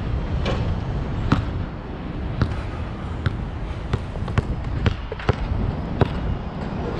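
Nike True Grip basketball bouncing on the court: about nine sharp smacks, spaced irregularly half a second to a second apart, over a low steady rumble.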